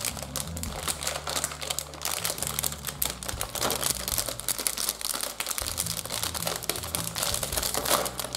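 Plastic candy bag crinkling and crackling irregularly as hands work at it to open it.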